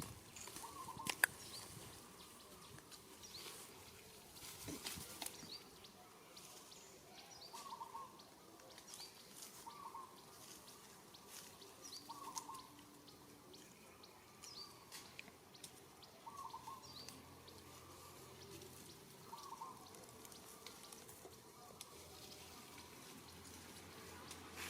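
Faint short animal calls, repeated every two or three seconds, with scattered sharp clicks and brief high chirps between them.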